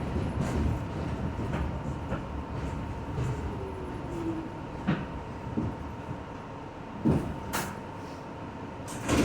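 An R62 subway car running on the track: a steady rumble, with a few sharp clicks and knocks in the second half.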